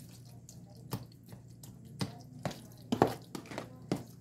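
Several light, sharp knocks and clicks of a kitchen utensil against a dish, at irregular spacing, while the macaroni-and-cheese mixture is being worked.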